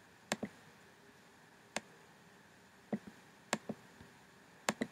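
Computer mouse button clicks: about nine short, sharp clicks, mostly in quick press-and-release pairs, spread a second or so apart as menus are opened and items chosen.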